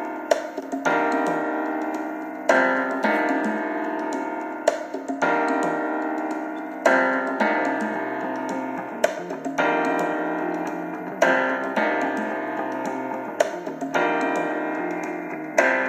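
Solo piano playing slow, sustained chords: a new chord is struck about every two seconds and left to ring and fade.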